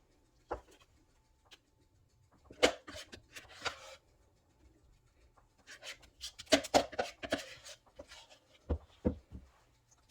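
Small baking pans and utensils being handled on a kitchen counter: scattered light taps and knocks with brief bursts of scraping and rustling, and two sharper knocks near the end.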